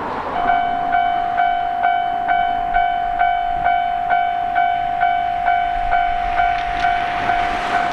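Railway level-crossing alarm ringing its 'kan kan' bell, a steady ding repeating about twice a second. Near the end a rushing noise swells underneath.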